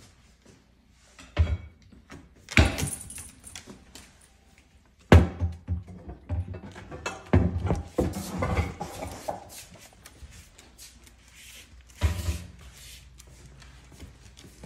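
A few sharp thumps and clattering knocks, several seconds apart, with a busier stretch of clatter in the middle, as dogs move about on a tiled kitchen floor.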